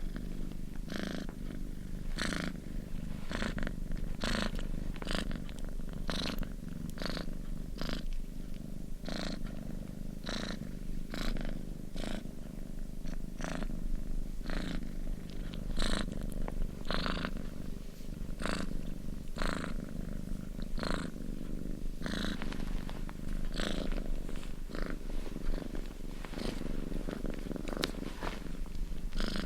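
Domestic cat purring steadily: a continuous low rumble with a breathy pulse about once a second.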